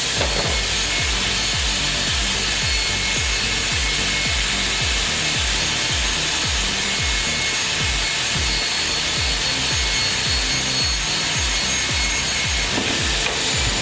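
Woodworking machine cutting wood, a steady high hiss, over background music with a steady bass beat.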